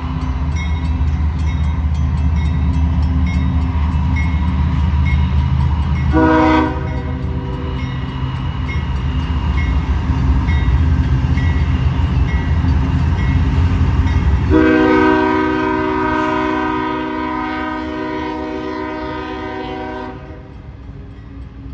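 Diesel freight train passing with a heavy low engine rumble; the locomotive's horn gives a short chord blast about six seconds in, then a long blast of about six seconds that cuts off, after which the rumble is quieter.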